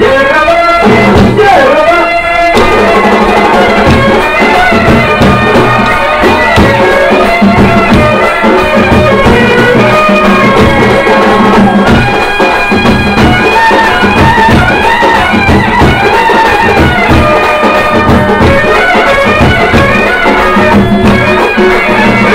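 Loud folk music for a kolattam stick dance: a held melody line over a steady, busy drum beat.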